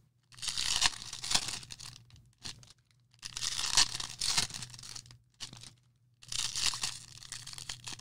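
Wrappers of 2020 Bowman Draft trading-card packs being torn open and crinkled, in three bursts of about two seconds each, over a faint steady low hum.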